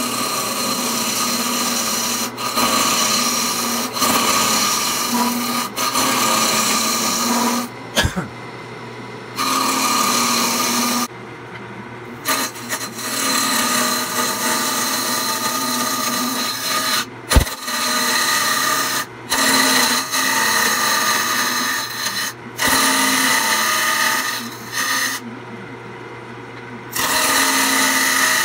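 A wood lathe running with a steady hum while a turning tool cuts into a spinning old oak bowl blank, in rough scraping passes of a few seconds, each broken by a brief gap where only the lathe is heard. Two sharp knocks come at about a third and two thirds of the way through.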